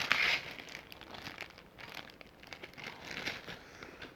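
Close-miked chewing of crispy fried chicken: dense crackly crunching, loudest right at the start and then continuing more softly in bursts.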